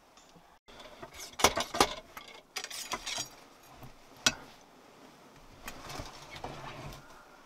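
Sharp clicks, knocks and scraping in bursts, loudest about a second and a half in, then a single knock about four seconds in and softer rustling near the end. These fit the handling of a camera being moved about inside a hunting blind.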